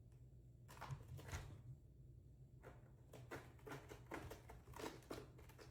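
Faint, irregular scratching strokes from a cat's claws on a tall scratching post: a short cluster about a second in, then a longer run in the second half, over a low room hum.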